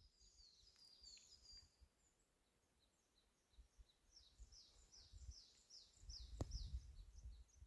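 Near silence with faint birdsong: a run of short, high, falling chirps, about three a second, starting about four seconds in. A low rumble and a single click come near the end.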